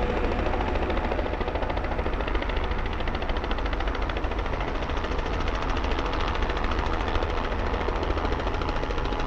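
Robinson R44 piston-engine helicopter hovering low: a rapid, steady beating of the rotor blades over the engine's drone.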